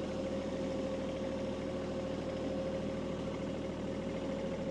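Kubota B2301 compact tractor's three-cylinder diesel engine running steadily, with a constant whine over the engine note.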